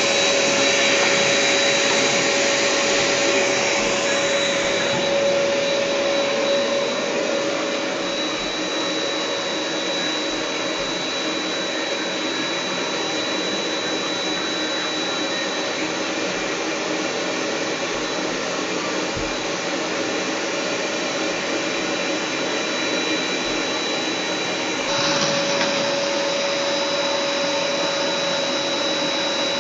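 Household vacuum cleaner running steadily, a loud whooshing of air with a steady motor whine; the pitch and level shift slightly near the end as the airflow changes.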